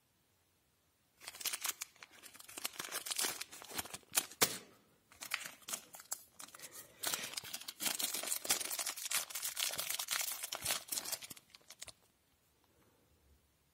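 Small clear plastic token bag crinkling and rustling as it is handled, starting about a second in, with a brief pause near the middle, and stopping about a second before the end.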